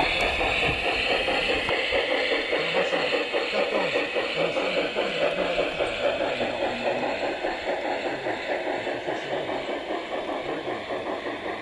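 Garden-scale model train, a small steam-outline locomotive hauling coaches along outdoor track: a steady running noise of motor and wheels on the rails, growing fainter over the last few seconds as it moves away.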